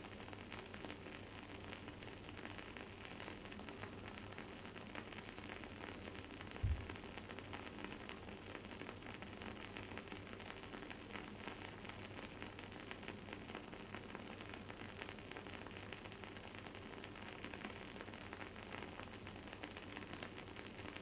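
Wooden candle wick burning with a steady run of small crackles and a soft sizzle. There is one short low thump about a third of the way in.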